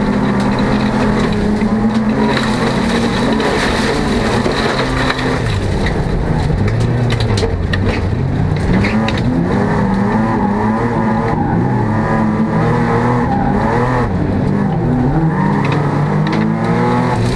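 Folk-race car's engine heard from inside the cabin under hard racing, its pitch climbing as it accelerates and falling back at each gear change, several times over. Scattered clicks and knocks come through the body.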